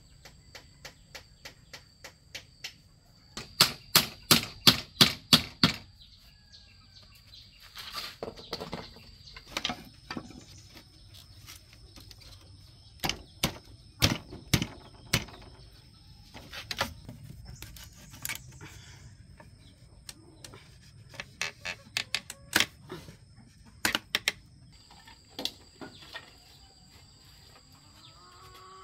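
Sharp knocks on bamboo in quick runs of several strikes, about four a second, loudest a few seconds in, as split-bamboo slats are fastened to a bamboo cupboard frame.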